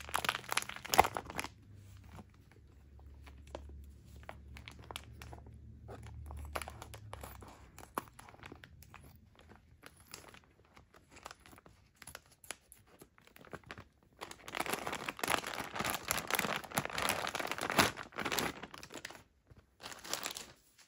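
Clear plastic packaging bag crinkling and rustling as it is handled and snipped open with scissors, with scattered sharp clicks in the middle and a long stretch of dense crinkling near the end as the bag is pulled open.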